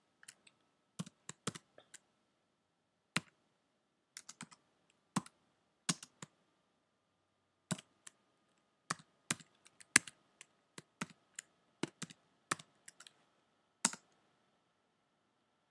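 Typing on a computer keyboard: single keystrokes at an uneven, unhurried pace with short pauses, as a line of mixed letters, digits and symbols is entered. The last key press, about a second before the end, enters the line.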